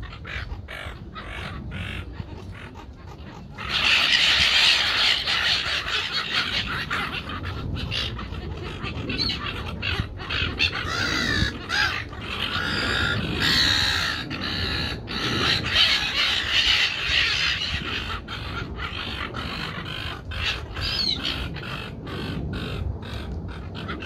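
A flock of silver gulls calling, a dense chorus of harsh squawks that grows much louder about four seconds in and stays busy throughout.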